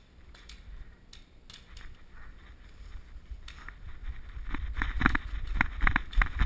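Footsteps running over snow-covered dry leaves, with wind and handling noise rumbling on an action camera. The footsteps come in as an uneven patter about three and a half seconds in and get louder.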